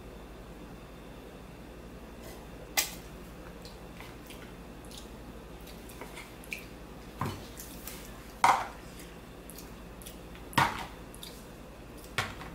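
Empty instant-noodle bowl handled and set down, giving about five short knocks and clatters spread out over several seconds, the loudest about eight and a half seconds in.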